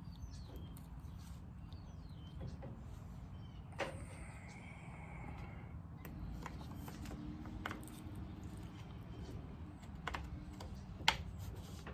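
Scattered clicks and light knocks from hand-handling chainsaw parts and tools, the loudest sharp click near the end, over a steady low hum.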